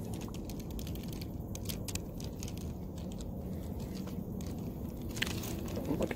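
Fishing reel being worked while a small striped bass is fought on the line: irregular clicks and crackles over a steady low rumble.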